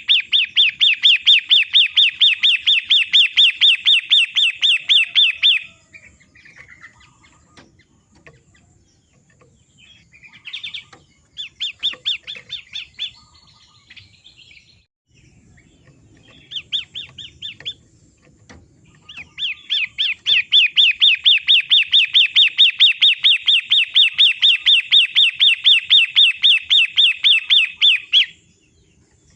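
Long-tailed shrike (pentet matahari) calling, used as a training recording: long runs of rapid repeated high notes, about five or six a second. The first run stops about six seconds in, a few short bursts follow, and a second long run starts about nineteen seconds in and stops near the end.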